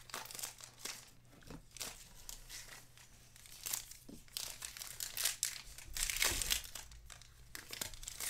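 Baseball card pack wrappers being torn open and crinkled by hand: irregular rustling and tearing, loudest about five to six seconds in.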